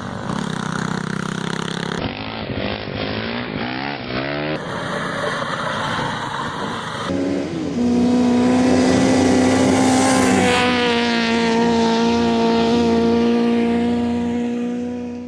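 A motor revving up and down in pitch, then a loud steady whine from about seven seconds in that fades out at the end.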